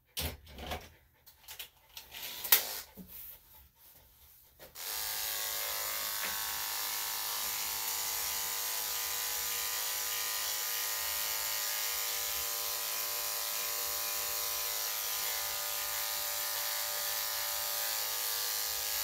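A few scattered clicks and knocks, then about five seconds in a corded electric dog clipper fitted with a #7 blade is switched on and runs steadily, clipping matted hair from a small dog's inner leg and armpit.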